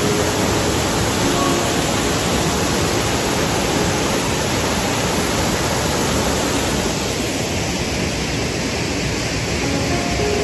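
Steady rush of a small waterfall spilling over rock into a pool, an even hiss of falling water that eases slightly in the last few seconds.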